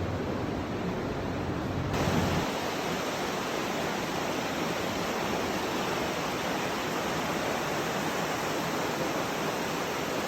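The Aare river's fast water rushing through the gorge: a steady, even wash of noise. About two seconds in the sound turns brighter, with less low rumble.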